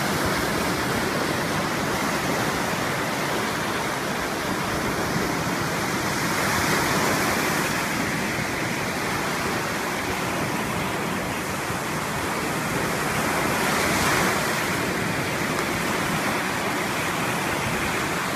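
Lake Michigan surf: waves breaking and washing up on a sandy shore in a steady rush, twice swelling a little louder, once near the middle and once near the end.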